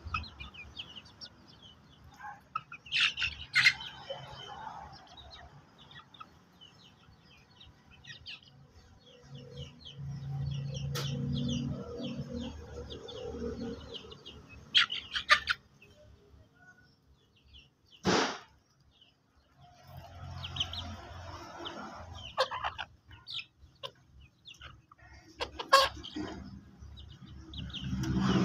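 Chickens clucking, with wings flapping now and then and many scattered short clicks. One short, loud burst about two-thirds of the way through.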